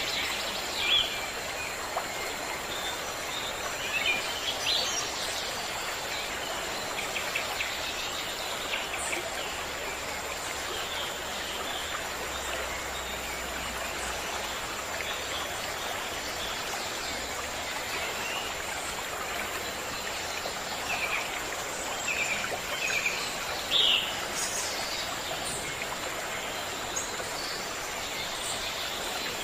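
Running water from a stream, a steady rushing, with birds chirping here and there over it; a few louder chirps come about a second in, around four to five seconds in, and near twenty-four seconds in.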